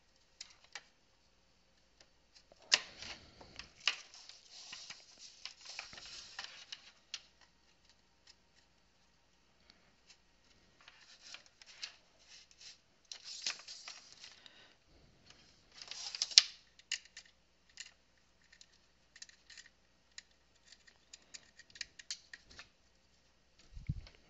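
Clicks, scrapes and rustling of small electronics being handled: a PiFace add-on board being fitted onto a Raspberry Pi. The sounds come in irregular bursts with quiet gaps, and there is a low thump near the end.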